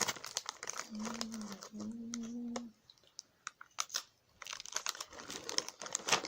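Plastic snack packet crinkling and rustling with sharp clicks of handling, and a closed-mouth hum in two parts about a second in.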